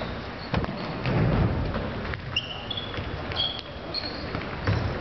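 Futsal play in a large sports hall: the ball thuds off feet and the wooden floor a few times, with short high squeaks of players' shoes on the boards near the middle.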